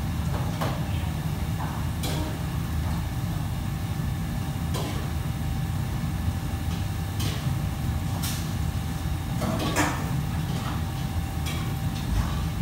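Restaurant kitchen ambience: a steady low rumble with a faint constant hum, broken by scattered clinks and clatters of metal utensils and pots. The loudest clatter comes about ten seconds in.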